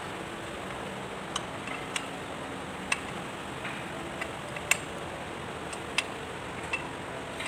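Scattered sharp metal clicks and taps, about six over several seconds, as a hand tool works on the valve rocker arms of a Kubota Z851 two-cylinder diesel head, over a steady background hiss.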